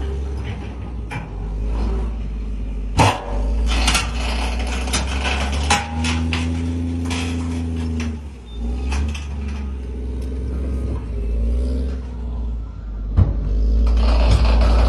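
Large crawler bulldozer's diesel engine running hard under load as the blade pushes a huge boulder, its note rising and falling about six to eight seconds in. Sharp knocks and clanks of steel and rock come through, the loudest about three seconds in and again near the end.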